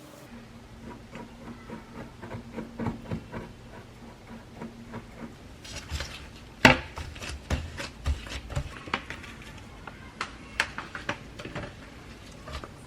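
Irregular clatter of small knocks and taps from objects being handled, with one sharp knock about seven seconds in and a steady low hum during the first few seconds.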